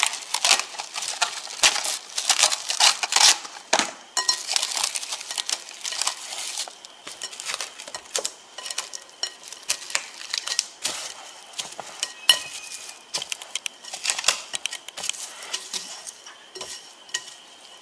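Plastic cling wrap crinkling and crackling as it is pulled taut and pressed around the rim of a glass mixing bowl, with light clinks of the glass bowl. The handling is busiest for the first seven seconds or so, then thins to scattered crackles.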